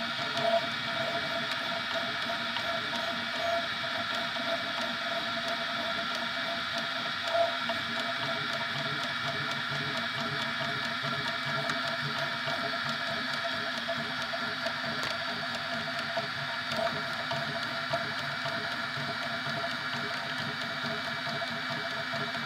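3D printer running as it prints, its stepper motors giving a steady whine of several tones with a few brief louder blips.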